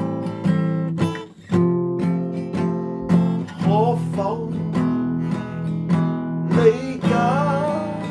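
Acoustic guitar strumming chords, with a brief break about a second in.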